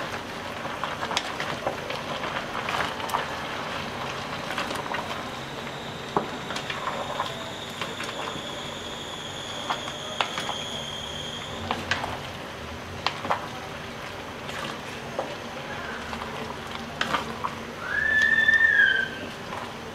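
Wooden spatula stirring jackfruit and chicken in coconut-milk gravy in a metal pot, with scattered knocks and scrapes against the pot over a steady simmering hiss. A faint high whistle-like tone runs through the middle, and near the end a louder whistle-like squeal of about a second rises and then falls.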